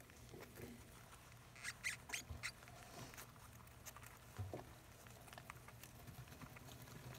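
Faint rustling and scratching of shredded newspaper bedding as African soft-furred rats shift about in their nest, with a cluster of sharper scratches about two seconds in; a low steady hum underneath.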